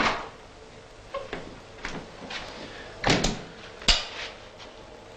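A room door and its latch being handled: a string of light knocks and clicks, then a heavier thud a little after three seconds and a sharp click about a second later.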